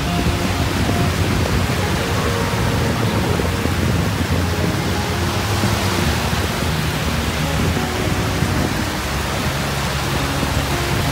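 Steady rushing noise of sea surf and wind, with wind buffeting the microphone.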